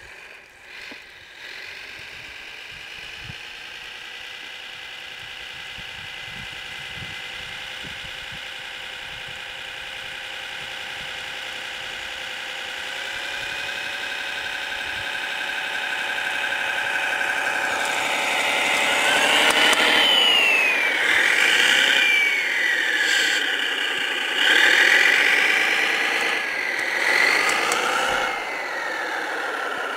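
Simulated engine sound from the sound module of a radio-controlled snowcat model, played through its small speaker. It starts up about a second and a half in and idles steadily, growing louder. From about two-thirds through it revs up and down several times, then drops back to idle near the end.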